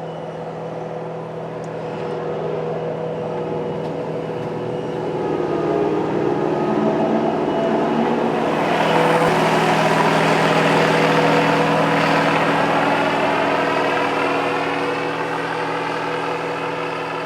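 Riecam RBM 300 sugar beet harvester working, its air-cooled Deutz V8 engine and lifting machinery running steadily. It grows louder as the harvester passes close, loudest about halfway through, then fades.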